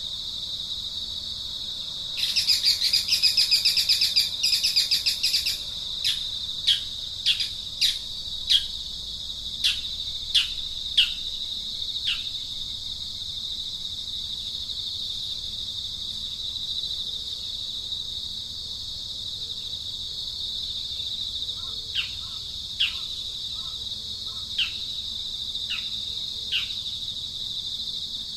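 Steady high-pitched insect drone with birds calling over it: a loud rapid trill about two seconds in, then a run of short whistled notes that each slide downward, roughly one or two a second, and a few more of them near the end.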